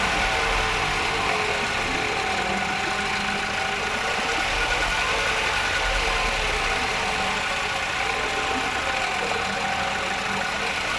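Nissan YD25 2.5-litre four-cylinder diesel engine idling steadily, its speed settling down just at the start; the owner reports a strange noise from this engine.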